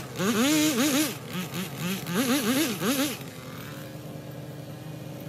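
Chainsaw engine revving in quick repeated throttle blips, each rising and falling in pitch, for about three seconds. It then settles into a steady run.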